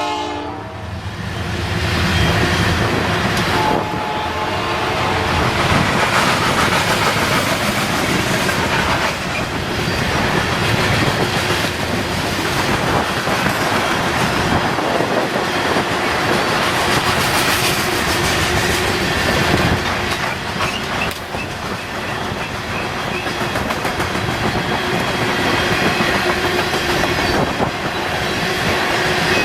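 A long freight train rolling past, its wheels clattering steadily over the rail joints with a continuous rumble. The tail of its horn blast cuts off right at the start.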